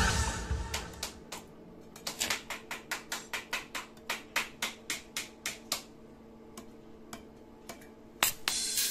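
Background music fading out, then a run of sharp, even taps or clicks, about three to four a second for a few seconds, thinning to a few scattered ones over a faint steady hum.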